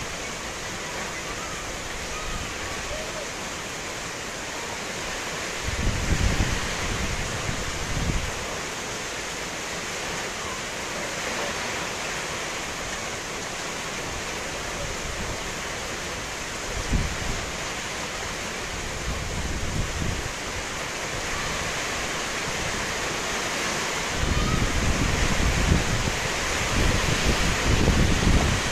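Steady rain falling, with gusts of wind buffeting the microphone about six seconds in, briefly around seventeen seconds, and more strongly over the last few seconds.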